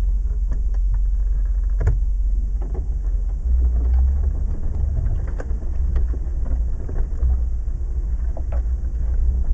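Land Rover Defender's V8 engine running at low revs, a steady deep rumble heard from inside the cab, with knocks and rattles from the body as it rolls over a rough dirt track; one sharp knock about two seconds in.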